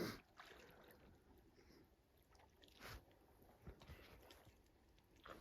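Faint sloshing and swishing of water as someone wades through a marsh, with a brief louder splash at the start and another about three seconds in.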